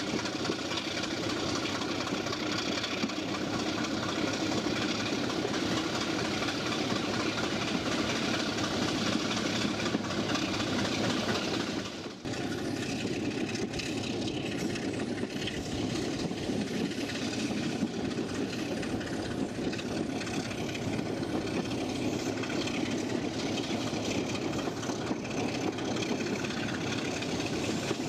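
Diesel train running along the line, heard from an open carriage window: a steady rumble of wheels on rail mixed with engine noise. There is a brief drop in level about twelve seconds in.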